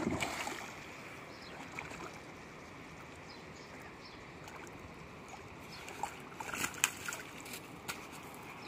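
A hooked rohu splashing and thrashing at the water's surface as it is pulled in, followed by gentle water sounds. About six to seven seconds in, a few sharp clatters as the fish is hauled onto the gravel shore.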